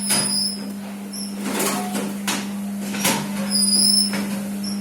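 Commercial rack conveyor dishwasher running: a steady hum under a washing hiss, with scattered knocks and two brief high squeaks, one at the start and one about three and a half seconds in.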